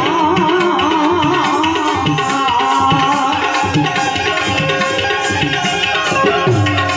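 Instrumental passage of a Gujarati desi bhajan: harmonium melody over steady tabla strokes, with a low bayan stroke bending down in pitch near the end.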